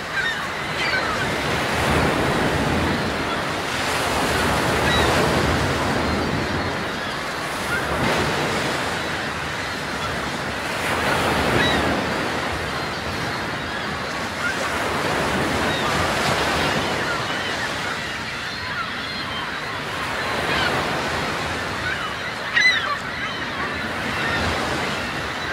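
Sea waves washing with a steady rush that swells and ebbs every few seconds. Short, faint, high seabird calls sound over it now and then.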